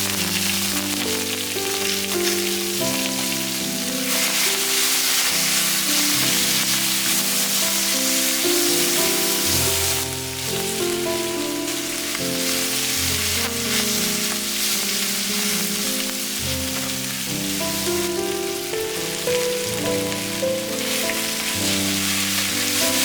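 Pork belly and vegetables sizzling as they are stir-fried in a frying pan, over background music.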